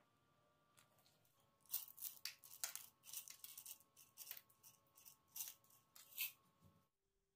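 Coloured sugar sprinkles being shaken out over cakes: a string of short, crisp shakes, a few a second, starting about two seconds in and stopping abruptly near the end.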